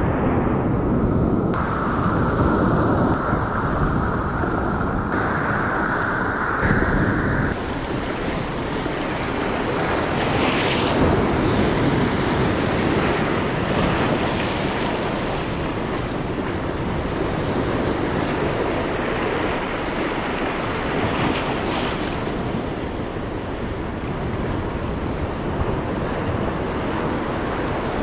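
Heavy sea surf breaking and washing continuously over volcanic shore rocks, with wind buffeting the microphone.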